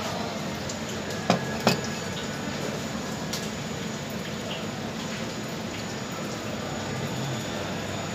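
Beaten egg frying in a four-cup non-stick pan over a gas burner, a steady sizzle. Two sharp clicks close together about a second and a half in.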